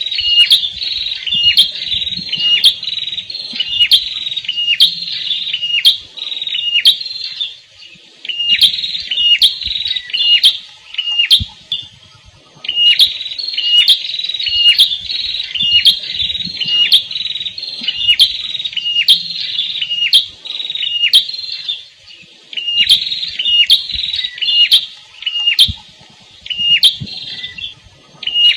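Prenjak kepala merah (red-headed prenjak) singing: rapid, repeated high-pitched chirping notes in runs of several seconds, broken by brief pauses.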